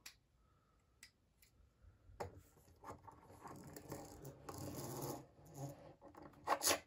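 Handling noise from a small plastic action figure and bicycle toy: light scratching and rubbing with a few small clicks, then a sharp plastic clack near the end.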